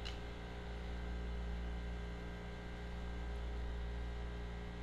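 Small airbrush compressor running with a steady hum, with an even hiss of air from the airbrush.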